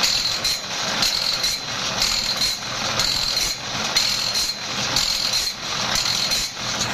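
Automatic band-saw blade sharpener running: the grinding wheel dips into each tooth of the band-saw blade as the feed pawl steps the blade along, a grinding whine pulsing about twice a second over the motor's hum.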